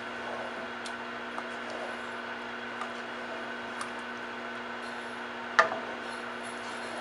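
Wooden spoon stirring thick chili in a pot, with faint scattered taps and one sharp knock against the pot about five and a half seconds in, over a steady hum.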